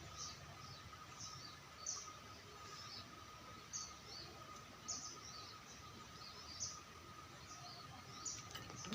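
Small birds chirping: short, high calls repeating every second or so, over faint outdoor background noise with a thin steady tone.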